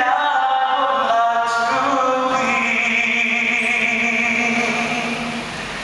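A priest singing a slow song with a man's voice, moving between notes and then holding one long note for about three seconds before it fades near the end.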